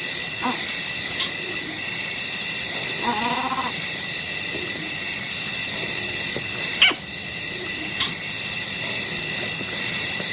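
A steady chorus of night insects trilling in several high tones, with one short pitched animal call about three seconds in and a few sharp clicks or snaps.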